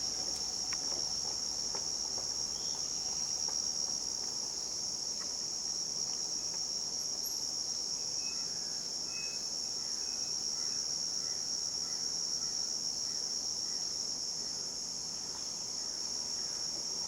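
Steady high-pitched chorus of crickets trilling without a break. A faint run of short falling chirps comes in through the middle.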